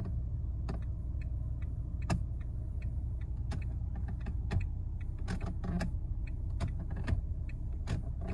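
Steering-column stalk switch of a 2024 Lada Vesta NG being worked back and forth, giving irregular creaks and clicks over a steady low hum. The owner is unsure whether this creak in a car with about 15,000 km is normal or a fault for the dealer.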